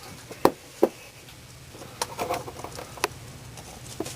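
A handful of separate sharp clicks and knocks, the handling sounds of close-up work at a wall outlet, over a low room hum. The two loudest come in the first second.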